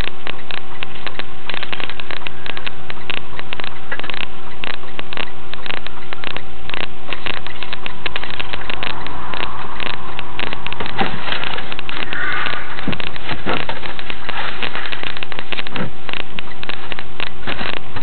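Truck cab noise on a dashcam's microphone: a steady drone with two held tones under dense, constant crackling, loud and overloaded throughout.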